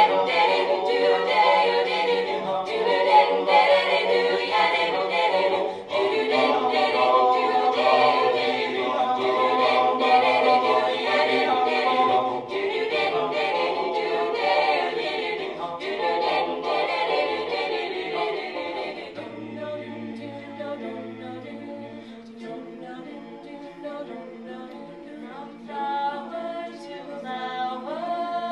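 Mixed-voice a cappella choir of male and female singers on handheld microphones, singing full and loud in close harmony, then thinning to softer, held chords about two-thirds of the way through.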